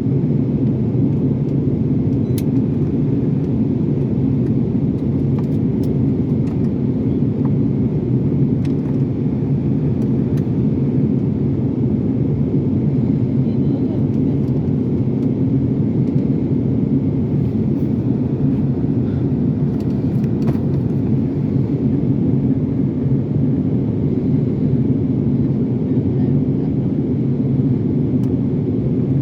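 Steady low drone of an airliner cabin on the landing approach: jet engine and airflow noise, with a few faint clicks.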